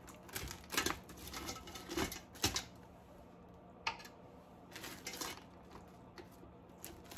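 Light, scattered clicks and taps, with a faint plastic rustle, of a knife cutting butter and crab legs being handled in a plastic oven bag as butter is rubbed onto them. A few sharp clicks come in the first few seconds, then fainter ones.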